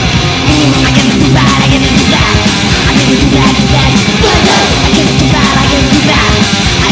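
Loud heavy rock music, steady throughout.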